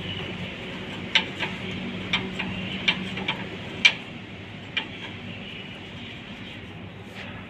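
Sharp metallic clicks and clinks, about eight in the first five seconds, as hands work the metal nozzle plate and spring of a roto packer. They sit over a steady machinery hum.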